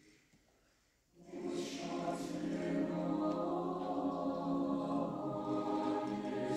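Mixed-voice chamber choir singing unaccompanied: a brief silent rest, then the choir comes back in together about a second in and holds a sustained chord, with sharp 's' consonants sounding in unison.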